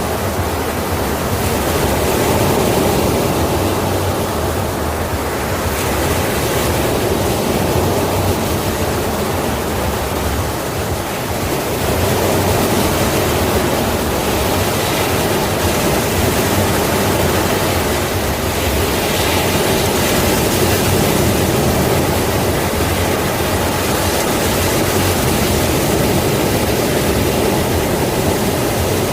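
Sea waves washing on the shore in a steady, dense roar of surf that swells and eases gently every few seconds.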